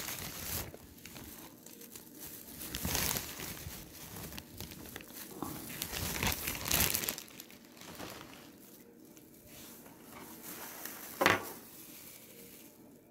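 Plastic packaging of mini marshmallows crinkling in several bursts as it is handled, with a short, sharper crinkle near the end.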